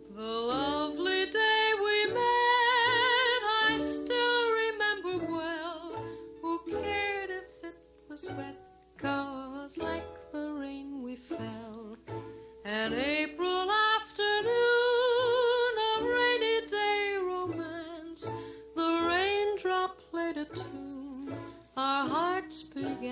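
Music from a 1950 pop record of a singer with orchestra, in a passage without lyrics. A melody with vibrato swells up into long held notes twice, about half a second in and again about twelve seconds in, over short low accompanying notes.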